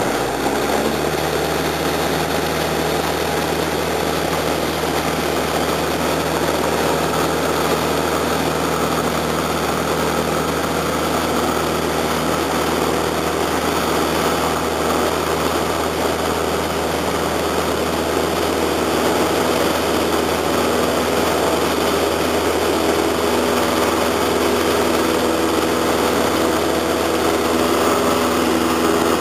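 Light aircraft engine and propeller running steadily at takeoff power, heard from inside the cabin through the takeoff roll and lift-off.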